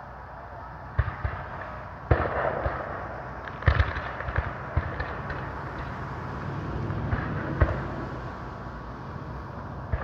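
Scattered black-powder gunfire from blank-firing Civil War reenactment guns: a run of sharp shots, the loudest about two, four and near eight seconds in, with fainter popping of more distant firing between them.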